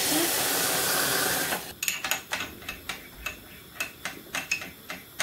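Hot water pouring from a saucepan into a small glass jar of brown linseed, a steady splashing that stops about a second and a half in. Then a metal spoon clinks irregularly against the glass jar as the linseed and water are stirred.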